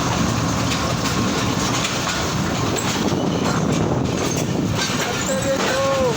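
A train running on the rails, with steady wheel-and-track rumble and clatter. Near the end comes a short pitched squeal that rises and falls.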